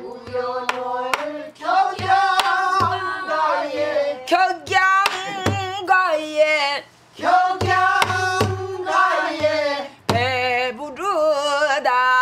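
Pansori singing in a woman's voice, long held notes with wavering pitch, accompanied by strokes on a buk barrel drum keeping the rhythmic cycle.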